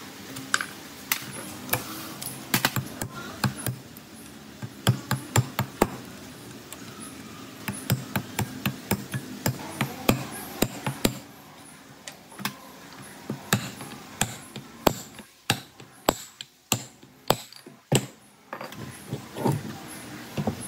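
Hand tools working on metal parts: dozens of irregular sharp knocks, taps and clicks, with a quieter, sparser stretch about three-quarters of the way through.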